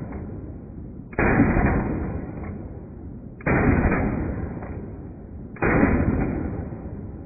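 Three shots from a CMMG Guard 45 ACP blowback carbine with a 16-inch barrel and muzzle brake, played back slowed to one-eighth speed. Each shot starts suddenly and fades slowly over about two seconds.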